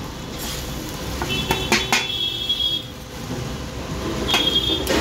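Metal utensils clattering: a few sharp knocks, with a high ringing squeal that lasts over a second near the middle and returns briefly near the end.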